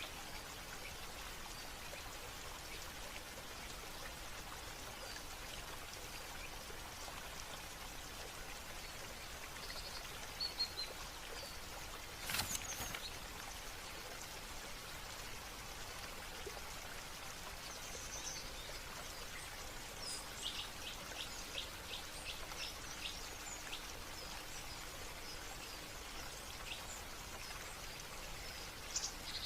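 Steady running, splashing water with birds chirping now and then, including a quick run of about eight short notes a little past the middle. A single sharp click sounds a little before the middle.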